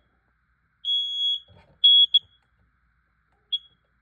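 Carbon monoxide detector alarm still sounding after its test and not shutting off: an irregular run of high-pitched single-tone beeps, one longer beep about a second in, two short ones near the middle and a short chirp near the end, with a faint knock after the long beep.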